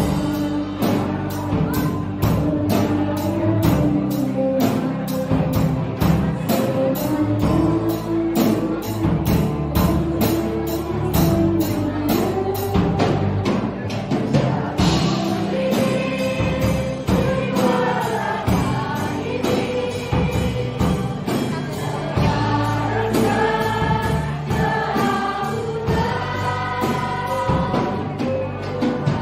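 A mixed group of students and adults singing a song together, led by a soloist on a microphone, over accompanying music with a steady beat. The beat is most prominent in the first half; from about halfway the sung lines stand out more clearly.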